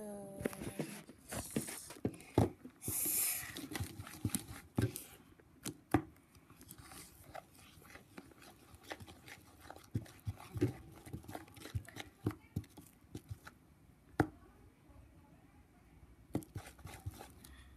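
A plastic spatula stirring and folding thick, nearly set slime in a bowl: irregular knocks and scrapes against the bowl with sticky pulling sounds. They come thick and fast for the first several seconds, then more sparsely, with a sharper knock or two near the end.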